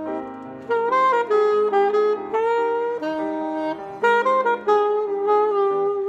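Saxophone playing a jazz melody of held notes with short pitch bends and steps, over piano accompaniment.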